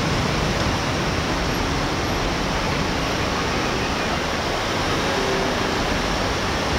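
Fireworks finale barrage: many shells bursting so close together that the bangs and crackle merge into a steady, dense rumble with no separate reports.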